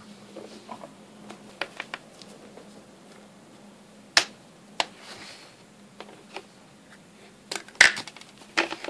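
Scattered clicks and taps of small plastic toy accessories being picked up and set down on a tabletop. The loudest are a sharp clack about four seconds in and a couple near the end.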